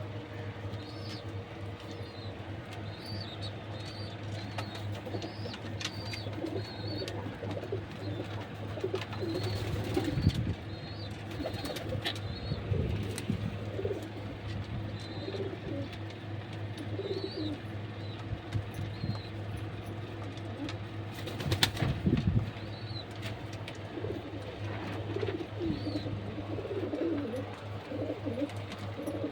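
Domestic pigeons cooing, with many short low warbling coos overlapping throughout, over a steady low hum. Two louder rustling bursts, one about a third of the way in and one about three-quarters of the way in.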